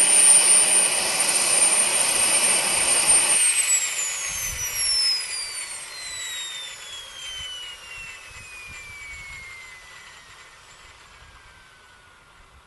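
Wren model gas-turbine engine of an RC helicopter at idle, then shut down by cutting its fuel. The loud rush drops off suddenly about three and a half seconds in, and the high whine glides steadily down in pitch and fades as the turbine spools down.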